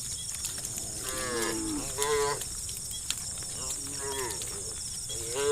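Cattle in a herd mooing in turn: a long moo falling in pitch about a second in, a shorter one at about two seconds, another near four seconds, and a louder one starting right at the end.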